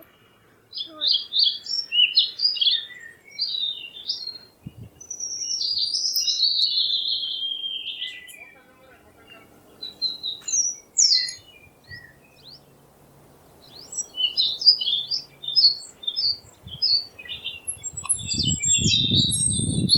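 Birds chirping and singing in short, repeated high phrases, with one longer falling phrase of song about a quarter of the way through. A low, noisy sound comes in near the end.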